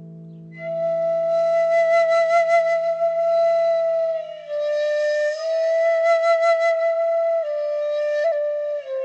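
Background music: a solo flute playing a slow melody of long held notes. It comes in about half a second in and steps down in pitch near the end.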